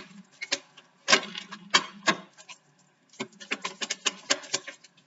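Tarot cards being shuffled and handled: irregular crisp card clicks and flicks, with a quick run of them after the midpoint. A low hum sits under the clicks about a second in.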